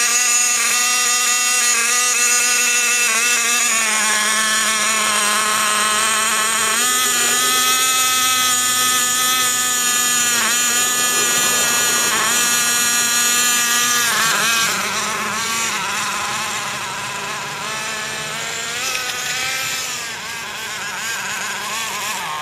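A nitro RC car's small two-stroke glow engine running steadily, with several short blips of the throttle. From about two-thirds of the way through it is quieter and rises and falls in pitch as the car drives off.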